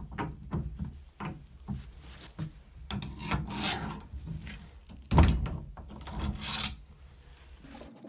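Tubular shower valve socket wrench unscrewing a brass shower valve stem from the wall manifold: a run of small metal clicks and scraping, with a few louder scrapes and clatters about three, five and six and a half seconds in.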